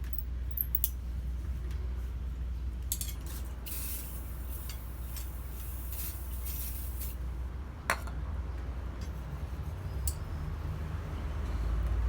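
Light metal clinks and scrapes from forged steel tongs being handled, with a hissing stretch in the middle and a sharper click about eight seconds in, over a steady low hum.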